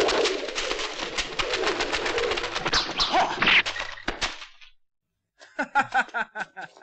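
Dry leaves crackling and rustling under a struggling body, with quick hits mixed in, cutting off abruptly about four seconds in. After a brief gap, a short rapid run of pitched calls follows near the end.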